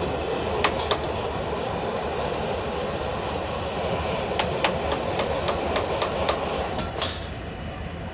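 Stir-frying in a wok over a high gas flame: a steady roar of burner and sizzle, with about ten sharp clinks of a metal ladle against the wok. The noise eases a little near the end.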